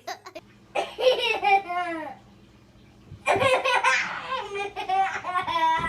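A baby laughing in two bouts: a short one about a second in, then after a brief pause a longer run of repeated high-pitched belly laughs.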